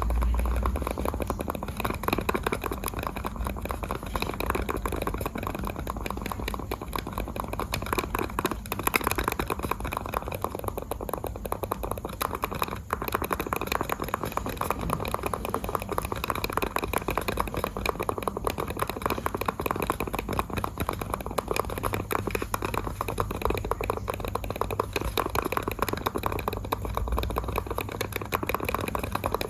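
Computer mouse buttons clicked rapidly and continuously, a dense stream of small sharp clicks.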